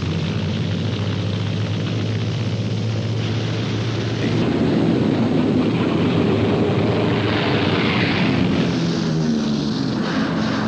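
Aircraft engine drone, a steady hum that grows louder about four and a half seconds in.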